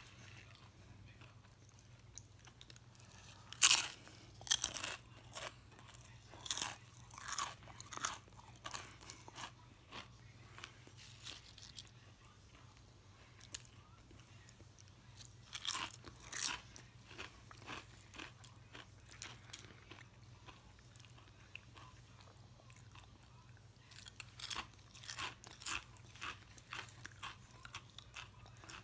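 Close-up crunching and chewing of Quest protein chips, in three bouts of sharp crunches: the first about four seconds in, the second around sixteen seconds, the third around twenty-five seconds.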